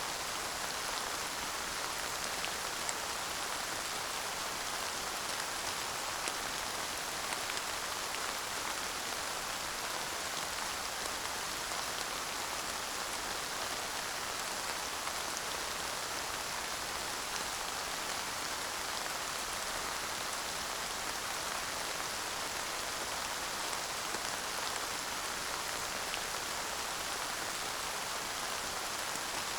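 Steady rain falling, a constant hiss of many drops with faint individual drop ticks and no thunder.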